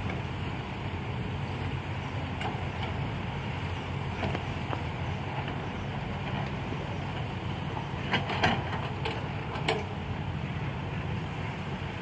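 Sumitomo hydraulic excavator's diesel engine running with a steady low hum as it digs and swings soil, with a few sharp knocks about eight to ten seconds in as rock and soil hit the dump truck's steel bed.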